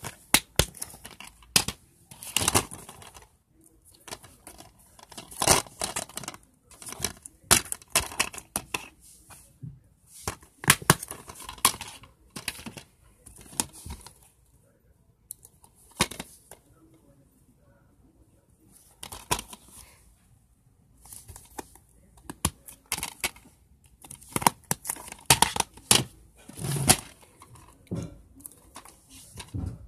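Plastic DVD cases being handled and shuffled by hand: irregular bursts of clicks, clacks and rustling, with a short lull about two-thirds of the way through.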